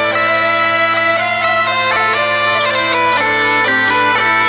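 Bagpipe music: a steady low drone held under a melody of quickly changing notes.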